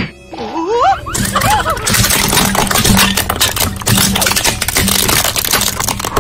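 A car engine running under a dense, continuous crackle of crunching as the car's tyres crush crunchy objects, starting a little over a second in. A short voice-like gliding sound comes before the crunching begins.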